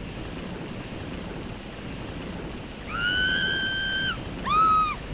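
Steady rushing wind noise, then a man screaming in a high, shrill voice: one long, held scream about three seconds in, then a shorter, louder one.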